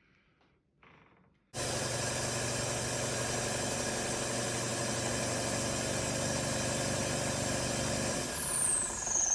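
Pickup truck engine running steadily, heard from inside the cab, starting abruptly after a second and a half of near silence. A high falling whine comes near the end.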